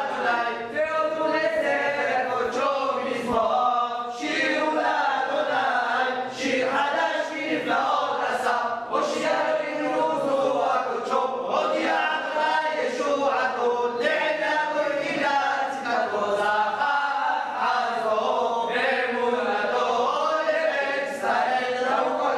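A group of men chanting prayers together, many voices overlapping continuously.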